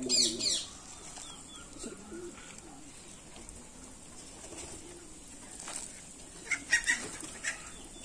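Flock of domestic pigeons feeding, with low wavering coos now and then. A short burst of wing flapping opens it, and a quick cluster of sharp clicks comes near the end.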